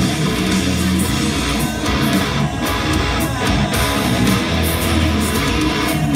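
Electric guitar, an Acacia Romulus played through a Line 6 Helix amp modeller, playing a continuous heavy metal riff.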